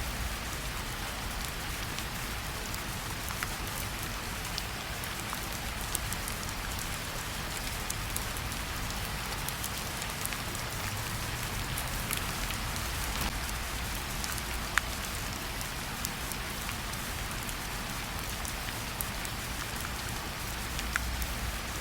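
Steady rainfall: an even hiss with scattered individual drops ticking.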